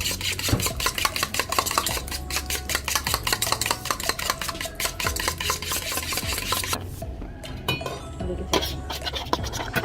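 A spoon stirring and beating curd in a vessel, a quick run of clicks and scrapes against the sides that thins out and slows about seven seconds in.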